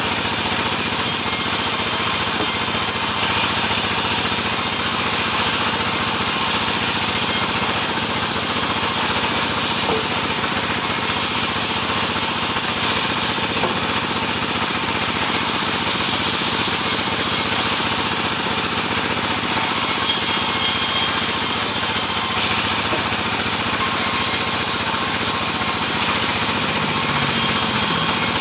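Sawmill saw running steadily while cutting sengon (albizia) wood.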